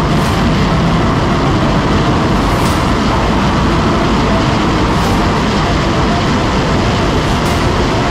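Turbocharged Suzuki Hayabusa motorcycle being ridden, heard through its onboard camera's microphone as a loud, steady rush of noise with no clear engine note.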